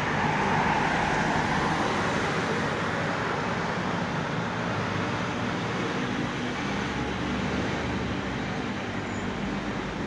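Steady road traffic noise, loudest in the first couple of seconds and then slowly easing.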